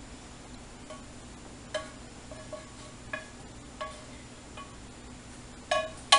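A spoon clinking and scraping against a frying pan and a bowl as meatballs in cream sauce are scooped out: a string of light clinks, each ringing briefly, with louder clanks near the end.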